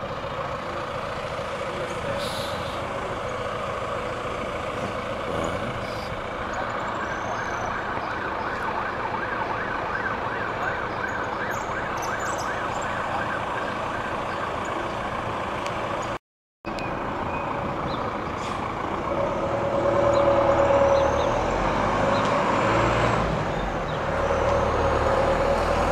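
Street traffic noise: vehicles running and passing along the road, with an engine close by, louder and lower, in the last few seconds. The sound cuts out completely for a moment about two-thirds of the way through.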